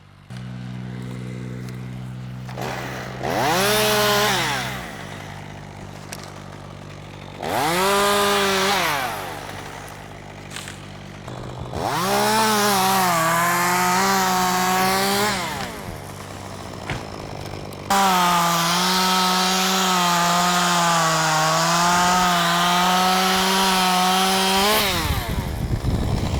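Two-stroke chainsaw idling, then brought up to full throttle four times, the last held for about seven seconds with the pitch dipping and recovering as it cuts into wood. Its chain has just been loosened after being too tight.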